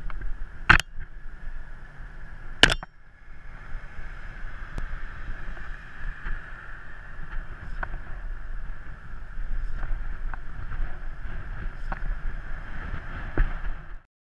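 Wind and road rumble from a moving bicycle, picked up by a camera mounted on the bike or rider, with a steady hum. Two sharp knocks about two seconds apart come in the first few seconds, and lighter ticks follow. The sound cuts off suddenly near the end.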